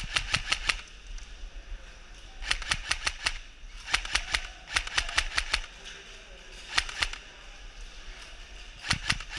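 Airsoft guns firing in short bursts of rapid sharp shots, with pauses of a second or so between bursts.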